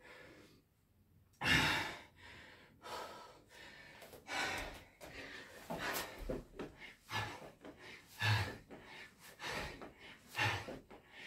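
A man breathing with exertion during burpees with push-ups: short, irregular exhales and gasps, after a quiet moment at the start.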